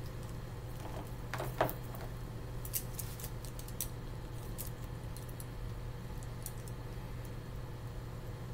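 Paintbrushes clicking and tapping against each other as a handful is picked up and sorted, with a louder knock about a second and a half in as a plastic palette is set down. A steady low hum lies underneath.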